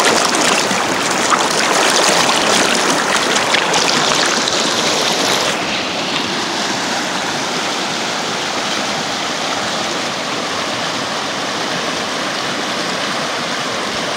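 Shallow, fast mountain stream rushing and splashing over granite boulders and rocks, close to the microphone. About five and a half seconds in it drops a little and loses some of its hiss, then runs on steadily.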